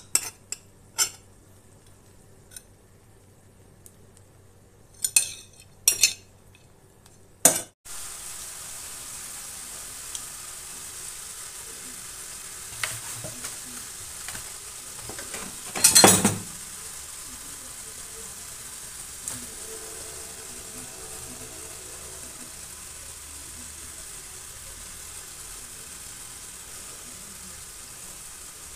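A ceramic plate and a metal spoon clink sharply against an aluminium cooking pot several times. Then comes a steady sizzling hiss from hot, freshly turned-out stuffed cabbage rolls on a metal tray, with one louder clatter about halfway through.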